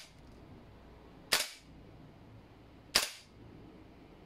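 Two single shots from a 10-inch G&G Armament MGCR 556 gas blowback airsoft rifle, a sharp crack with the bolt cycling, about a second and a half apart. They are semi-auto test shots fired through a chronograph, reading around 400 fps.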